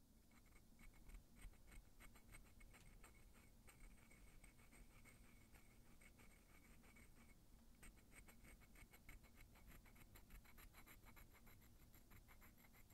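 Faint scratching of a metal cuticle tool scraping over the nail at the cuticle line, in many short, quick strokes with a brief pause about seven seconds in.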